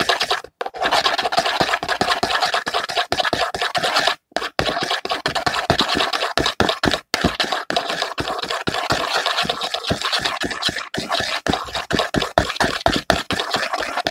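Paintbrush handle stirring a glue and shaving-cream slime mixture, scraping against the container in rapid repeated strokes, with short breaks about half a second, four seconds and seven seconds in.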